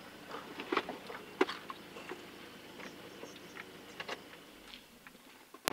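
Scattered light clicks and taps at irregular intervals over a faint steady background, with a sharper click near the end.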